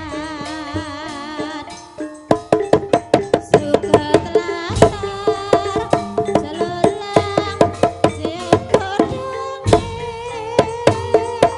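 Live Javanese gamelan for a kuda kepang (ebeg) dance. For the first two seconds a held melody with heavy vibrato sounds over the ensemble. Then come fast, loud drum strikes and bronze gong-chime notes in a dense rhythm.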